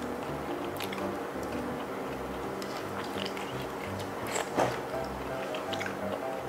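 Background music with steady held tones, over the short sharp clicks and smacks of razor clams in sauce being pulled from their shells and eaten by hand; the loudest click comes about four and a half seconds in.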